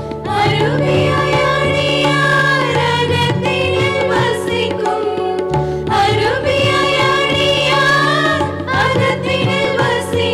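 Group of women singing a devotional song in unison into microphones, over steady instrumental accompaniment with sustained low notes.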